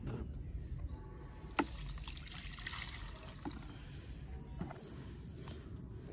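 Water pouring and trickling as a pesticide spray mix is made up, with a sharp knock about a second and a half in.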